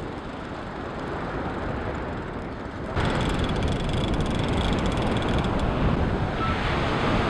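Wind on the microphone and surf, steady throughout. From about three seconds in, the Shimano Tiagra big-game reel adds a faint, fast clicking as it is cranked.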